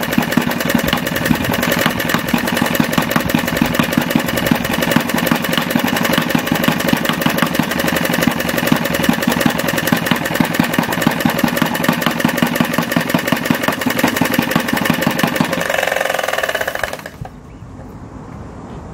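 Retrol 16cc single-cylinder model diesel stationary engine with mechanical injection, running on diesel with a fast, steady knocking beat. Near the end the compression is released to stop it: the note changes for about a second and then the engine cuts out.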